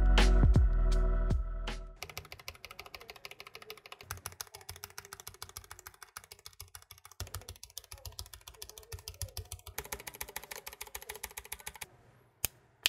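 Music for about two seconds, then fast typing on a mechanical keyboard fitted with PBT keycaps: a dense, irregular run of keystroke clicks that stops near the end, leaving a few single key presses.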